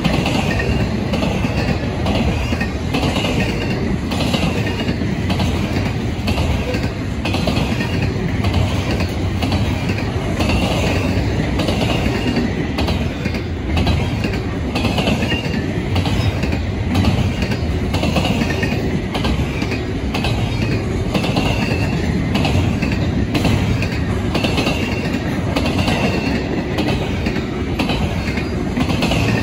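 Double-stack intermodal freight train's well cars rolling past at speed: a steady wheel-on-rail rumble with the clickety-clack of wheels over rail joints, and short high-pitched wheel squeals recurring every second or two.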